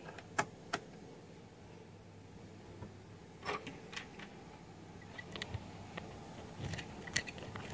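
Faint steady hum and a thin high-pitched whine from powered-up bench electronics, a switch-mode power supply and cooling fans, with a few small clicks and knocks scattered through, the sharpest about half a second in.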